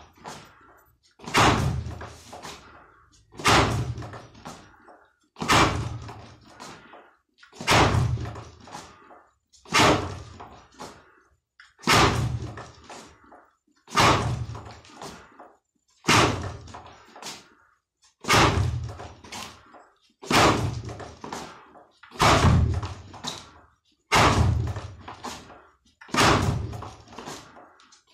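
Fist striking a wall-mounted wooden makiwara board with lead-hand jabs (kizami zuki): a sharp knock with a low thud, repeated about every two seconds.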